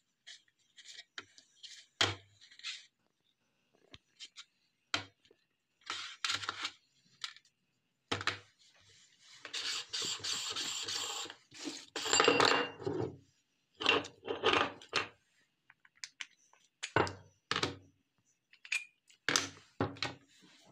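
Metal parts of a hand-cranked meat grinder clinking and knocking as it is handled and taken apart, its auger, cutting plate and blade set down on a tray. About halfway through there are a few seconds of scraping.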